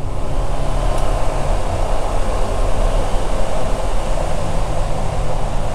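Husqvarna 701's single-cylinder engine running steadily at cruising speed, under a constant rush of wind and tyre noise on loose gravel.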